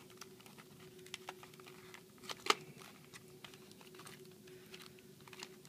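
Plastic-fronted retail package being handled and pried open: scattered small clicks and crinkles, with one sharper click about two and a half seconds in, over a faint steady hum.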